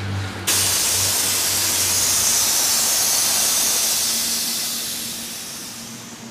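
Compressed air hissing from a pneumatic heat press as it is actuated. The hiss starts suddenly about half a second in and fades away over about five seconds.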